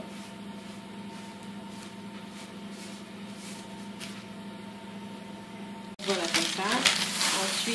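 Faint scraping of a spoon spreading chocolate spread over raw bread dough, over a steady low hum. About six seconds in, the sound cuts abruptly to much louder rustling and handling noise.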